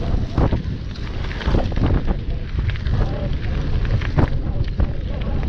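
Wind buffeting the microphone and tyres rumbling over a sandy dirt track as a gravel bike rides along, with frequent sharp knocks and rattles from the bike jolting over bumps.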